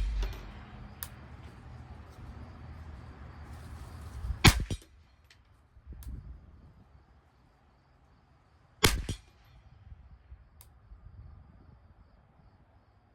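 Two shots from a Ruger 10/22 Target Lite semi-automatic .22 LR rifle firing SK Rifle Match ammunition, about four seconds apart, each a sharp crack with a short tail.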